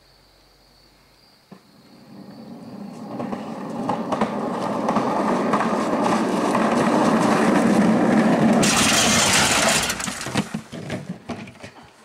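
Skateboard wheels rolling down a concrete driveway under riders seated on coolers. A low rumble builds from about two seconds in and grows loud as the boards come close. It cuts off sharply near the end into a few scattered knocks as a rider crashes off into the grass.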